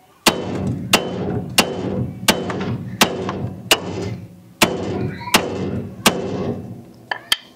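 Hammer blows on the steel front suspension of a 1964 Chevy Nova, about ten hard strikes roughly two-thirds of a second apart, each ringing briefly, to knock a seized joint apart where a separator alone won't do. The last two blows come close together near the end.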